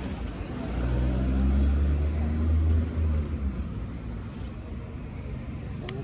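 A motor vehicle's engine passing close by: a low hum that swells about a second in and fades away after about three seconds, with a short click near the end.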